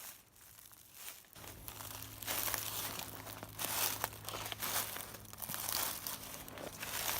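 Footsteps crunching through fallen leaves, one crunch after another. A low steady hum comes in about a second and a half in.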